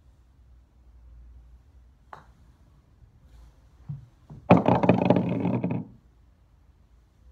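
A putter tapping a golf ball about two seconds in, then, some two and a half seconds later, the ball dropping into the hole of an artificial-turf putting mat and rattling about in the cup for about a second and a half.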